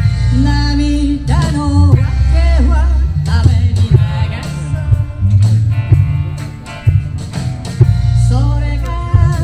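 Live band music amplified through PA speakers: a singer over guitar and band accompaniment with a steady beat. The singing comes in short phrases, with a pause in the middle.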